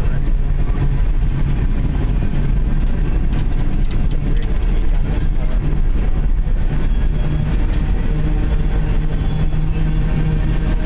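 Coal train's gondola cars rolling past close by: a steady, loud rumble of steel wheels on the rails.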